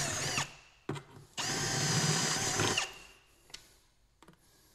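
Cordless drill boring holes. It stops just after the start, then runs again for about a second and a half and winds down as the trigger is released, followed by a few light clicks.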